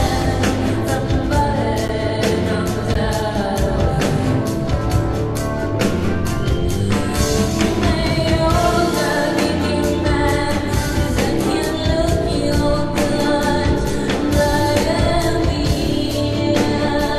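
Live concert recording of a rock song: a woman singing over a full band with drums.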